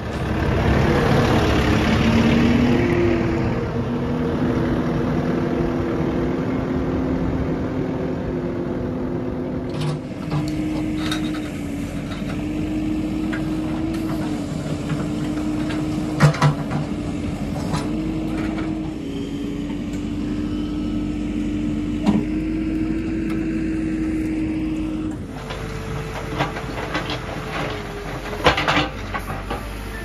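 JCB backhoe loader's diesel engine running under load, its pitch stepping up and down as the digger arm works. Several sharp knocks and clatters of the bucket against rubble and broken bricks.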